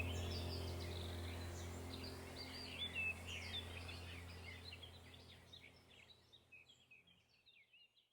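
Small garden birds chirping and twittering in quick overlapping calls over a steady low hum, all fading out to silence near the end.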